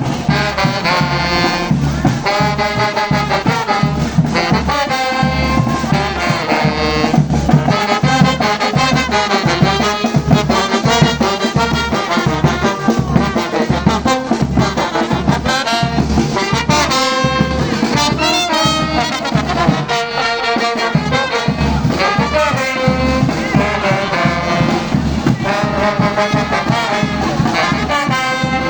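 Brass orchestra playing, with horn lines over a steady pulsing drum beat.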